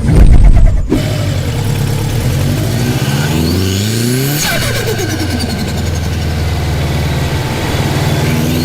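Turbocharged car engine accelerating hard, its pitch climbing through several rises, with a high turbo whistle that sweeps up and back down. A very loud blast fills the first second.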